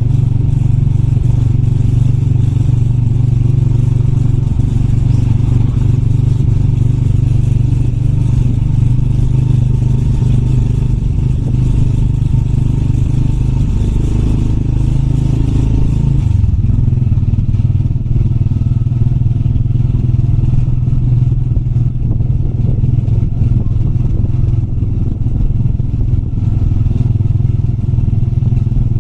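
Motorbike engine running steadily under way. A little past halfway the engine note drops and the rushing noise above it falls away, as the bike eases off.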